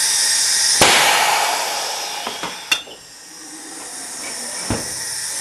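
Tire changing machine and a tire being forced off a steel rim: a loud metal clank about a second in, then a few sharper knocks, over a steady hiss that fades and then builds again.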